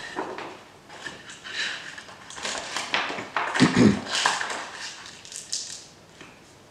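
Rustling, scraping and knocking of things being handled and moved, with one heavy thump a little more than halfway through.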